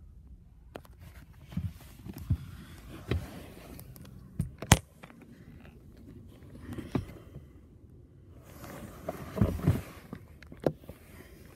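Handling noise from a phone camera being moved: irregular thumps and rubbing, with one sharp knock about halfway through, over a low steady rumble.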